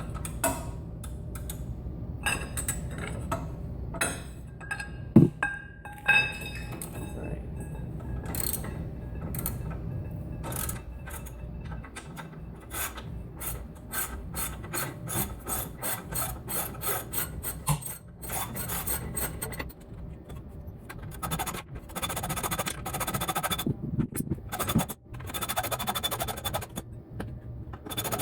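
Socket ratchet clicking in repeated strokes, with scrapes and metal clanks, as the lower shock bolt of a Mazda Miata's front suspension is worked loose with a 17 mm socket and a lever bar.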